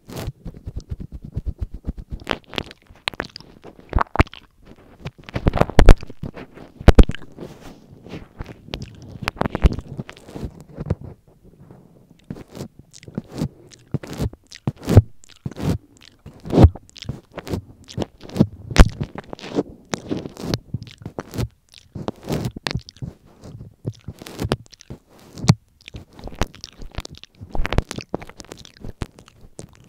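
Wet mouth sounds right on a microphone: a tongue licking the mic and lips smacking, in a dense, irregular string of clicks and squelches.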